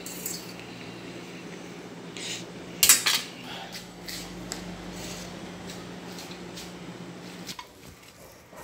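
Cutlery clinking and scraping against dishes, with a louder clatter about three seconds in, over a steady low hum that stops near the end.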